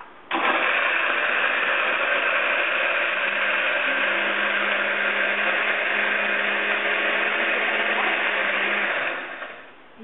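Countertop jug blender running, blending a drink. It starts abruptly, runs steadily for about nine seconds and winds down near the end.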